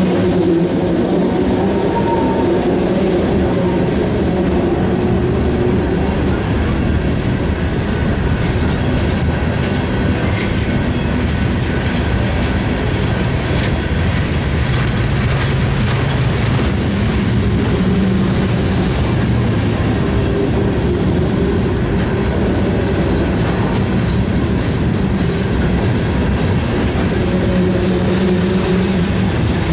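Freight hopper cars of a ballast train rolling past close by: steel wheels running on the rails in a steady, loud rumble that keeps up without a break.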